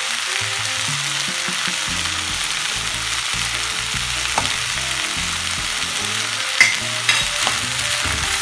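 Half-boiled carrots and peas sizzling in butter in a nonstick frying pan while a spatula stirs them, a steady hiss. Past the middle, two sharp taps of a utensil against the pan, about half a second apart.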